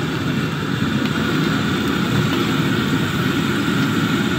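Samosas deep-frying in a large wok of hot oil, under a steady low rumble.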